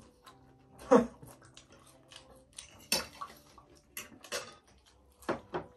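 Eating sounds at a table: forks clinking and scraping on plates and bowls, with short knocks and slurps as spicy noodles are eaten. A little after halfway there is a puff of breath blown out against the chili heat.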